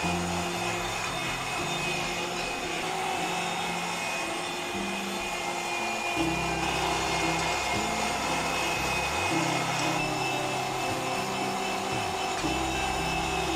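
Electric meat grinder running steadily as it minces raw surf clam meat and onion, under background music with a changing bass line. The grinder noise cuts out just after the end.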